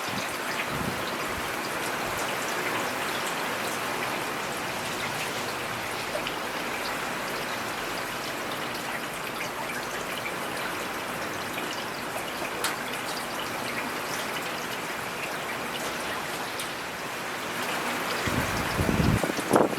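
Steady rain falling on forest foliage, a dense even patter with scattered single drops. A brief low rumble swells near the end.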